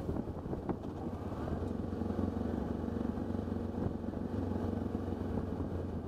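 Motorcycle engine running steadily at cruising speed, heard from the rider's position while riding a dirt road, with a few sharp clicks about a second in and again near four seconds in.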